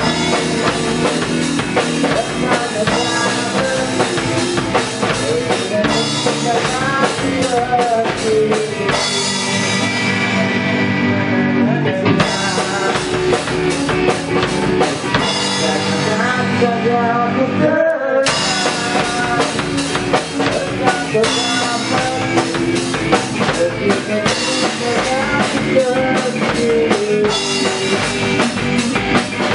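Rock song playing with a drum kit and guitars. About eighteen seconds in, the upper end drops out for a moment and the full band comes back in.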